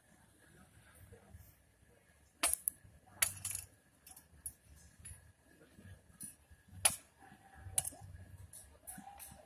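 A handful of scattered sharp clicks and light metallic clinks, unevenly spaced, over a faint low murmur.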